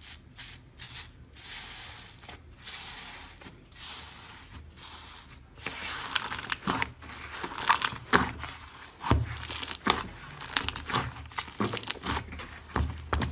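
Slime being stretched and squeezed close to the microphone, making a crackling, tearing sound, with sharper crunchy pops and crackles in the second half.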